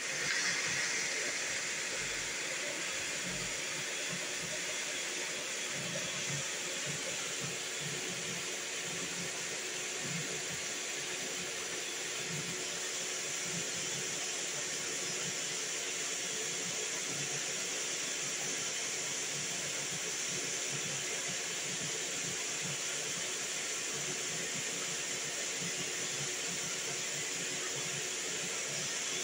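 High-speed 3D printer running flat out on a Benchy: a steady airy rush from its cooling fans and large blower, over a steady hum and faint irregular low pulses from the fast-moving axes.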